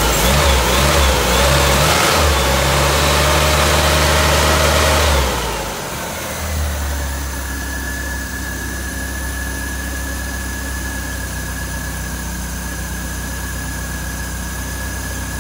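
Freshly rebuilt Triumph Spitfire 1500 four-cylinder engine held at raised revs on the throttle for about five seconds. It then drops back to a steady idle, running very smooth.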